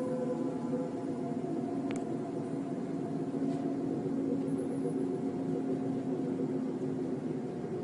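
A steady, droning hum of several held tones over a hiss, the kind of sound reported as mysterious 'sky trumpets'. There is a faint click about two seconds in.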